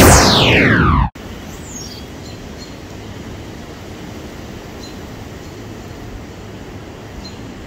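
A loud falling-pitch whoosh effect closes the intro and cuts off suddenly about a second in. It gives way to steady outdoor background noise with a few faint bird chirps.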